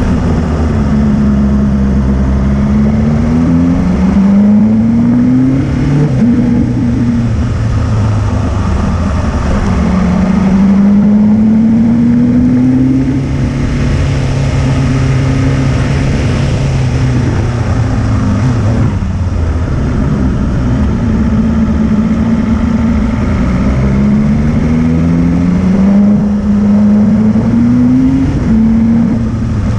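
Motorcycle engine pulling up a steep, winding climb. Its pitch rises several times under throttle and drops back between the rises, with a long climb in pitch about a third of the way in and a brief dip past the halfway point.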